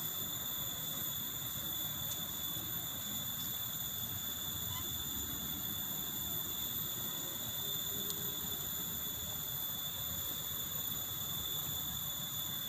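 Steady high-pitched drone of insects, holding one unbroken pitch, over a low rumble.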